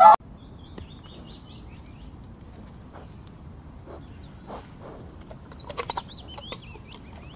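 A swan's loud honking call cuts off right at the start. After it, small birds chirp over a low steady outdoor background, most busily near the end.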